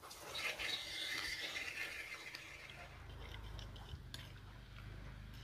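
Faint scraping and stirring in a stone mortar (cobek) as sweet soy sauce is mixed into chili sambal, fading after about two and a half seconds to a few light knocks.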